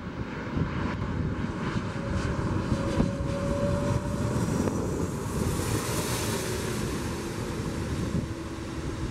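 Airbus A330-200 twin-engine jet on final approach passing low and close: a steady jet rumble with an engine whine that sits lower in pitch in the second half, and a high hiss that swells to its loudest a little past the middle. Wind buffets the microphone underneath.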